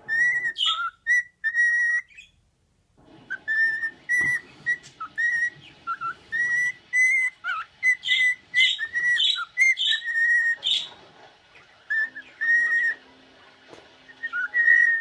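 Pet bird whistling a string of short, clear notes, some held steady and some swooping up or down, with a brief pause a couple of seconds in.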